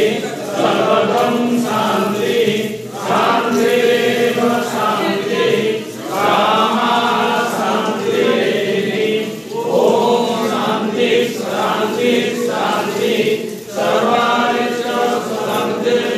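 A group of voices chanting a devotional prayer together in unison, in phrases of a few seconds each with brief pauses for breath between them.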